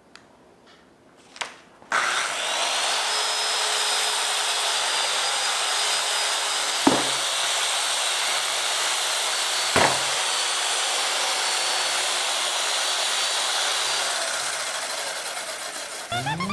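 Circular saw starting about two seconds in and running steadily as it cuts through a PVC sheet, with two brief knocks partway through. Its sound eases off near the end as synth music rises in.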